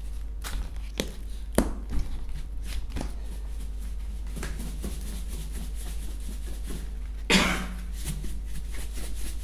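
Powdered bird hand-feeding mix being shaken inside a closed lidded tub, with a few sharp knocks of the container in the first two or three seconds. A person coughs about seven seconds in.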